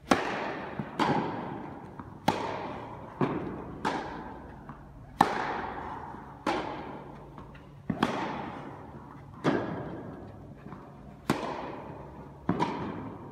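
Tennis serve and rally: sharp pops of rackets striking the ball and the ball bouncing on the court, about one every second or so, each ringing on in the echo of a large indoor hall.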